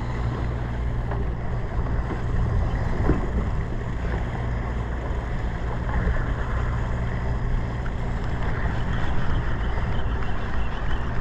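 Sportfishing boat's engine running steadily, with wind on the microphone.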